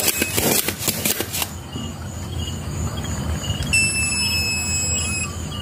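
Rustling handling noise for about the first second and a half as a hand moves over the circuit board on the workbench, then a steady low hum with a thin high-pitched whine for about a second and a half near the end.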